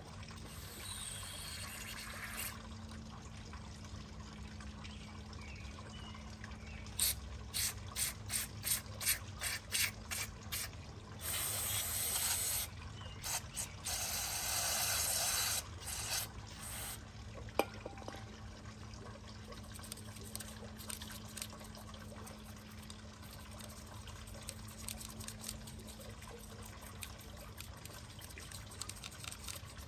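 Aerosol carburetor cleaner hissing from the can's nozzle to clean varnish left by old fuel out of a carburetor float bowl: a hiss near the start, a quick string of about ten short bursts, then two longer blasts of about two seconds each, with faint dripping afterwards.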